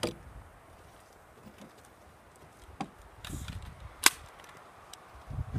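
Guns being handled on a wooden bench: a few short clicks and knocks of metal and wood, with a brief rustle, the sharpest knock about four seconds in.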